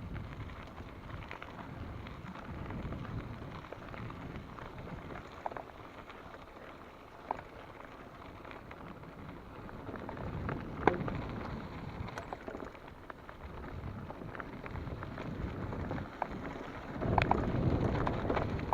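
Rumble and rattle of a mountain bike ridden over a rough dirt trail, with occasional sharp clacks from bumps. It grows louder and busier near the end.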